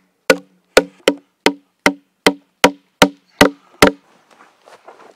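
Steady hammer blows driving a carved wooden wedge into a wooden workbench: about ten sharp woody knocks, roughly two and a half a second, each with a short ring, stopping about four seconds in.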